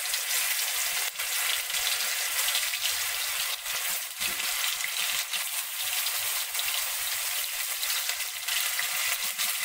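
Paneer cubes sizzling in hot mustard oil in a kadai, a steady frying hiss with scattered sharp crackles as more cubes are added one at a time.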